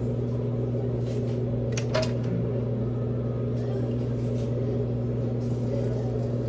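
Steady low hum of a kitchen appliance running, with a light click about two seconds in.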